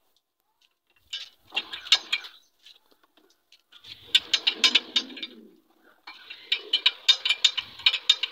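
Hand-cranked two-roller rubber sheet smoothing machine turning, its gears clattering in rapid ticks as a sheet of coagulated latex is pressed between the rollers. It comes in three spells of cranking after a silent first second, the last and longest starting about six seconds in.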